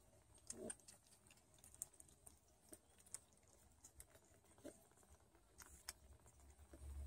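Faint, irregular little clicks and smacks of newborn Don Sphynx kittens suckling at their mother. A low rumble starts to build near the end.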